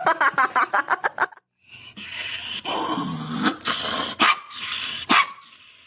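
A dog giving a quick run of short yips, then after a brief pause a longer, drawn-out call that dips in pitch, with a couple of sharp knocks near the end.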